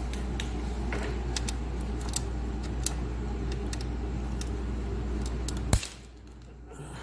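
Light metallic clicks and taps of a magnetic pick-up tool probing inside an Austin-Healey gearbox casing, fishing for the small detent ball bearings, over a steady low shop hum. A sharper click comes near the end, and the hum drops away just after it.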